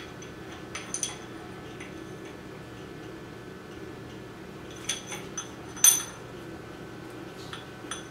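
Light metallic clinks and taps of a high-volume oil pump and its driveshaft being fitted by hand to a 351 Windsor block: two about a second in, a cluster around five to six seconds in with the loudest ringing briefly, and two more near the end, over a faint steady hum.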